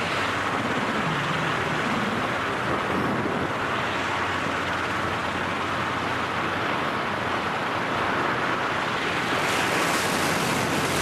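Steady rush of wind noise from air streaming past a skydiver in freefall, over the microphone.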